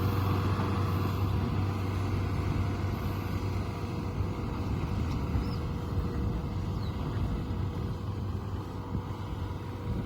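Kubota DC-70 combine harvester running steadily: a low engine drone with a faint steady whine above it.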